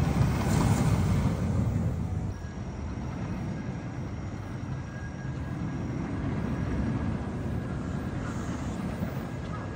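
Steel roller coaster train (Intamin Megalite) rumbling along its track, loudest in the first two seconds, then a steady lower rumble.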